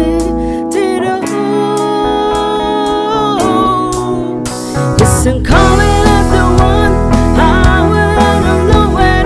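Band music with guitar and a singing voice; the bass and the fuller band come in louder about five seconds in.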